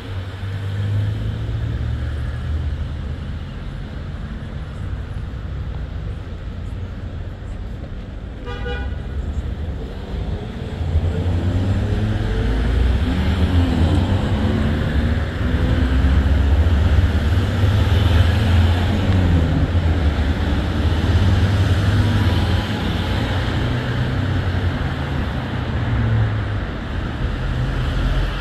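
Motor vehicle engine and road noise, a steady low rumble. A short horn toot sounds about eight seconds in, and from about eleven seconds the engine grows louder, its pitch rising and falling as it speeds up.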